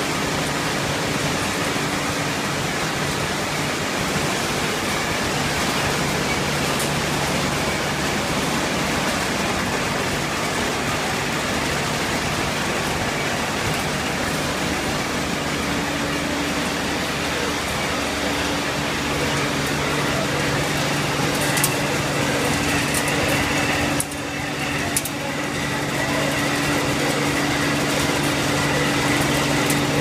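Shrimp conveyor and color-sorting machinery running steadily: an even, continuous hiss over a low electric-motor hum, with a few sharp clicks and a brief drop in level about four-fifths through.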